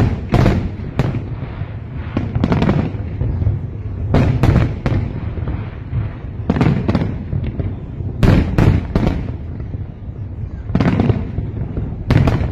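Fireworks display: aerial shells bursting one after another, sharp bangs at irregular intervals and often in quick clusters of two or three, over a continuous low rumble and echo.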